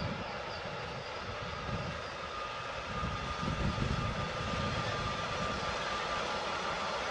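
Train running by, a steady rumble and rush with an uneven low end, joined about two and a half seconds in by a thin steady high whine.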